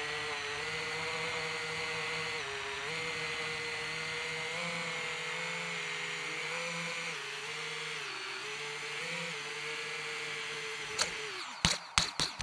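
DJI FPV drone's motors and propellers whining steadily as it flies, the pitch shifting slightly with throttle. Near the end the motor tone falls away and a few sharp knocks follow as the drone comes down onto the ground, then it goes quiet.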